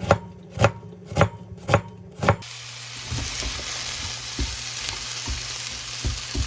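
Five knife chops on a cutting board, about half a second apart, then food sizzling steadily in a hot frying pan from about two and a half seconds in, with a few light clicks of stirring.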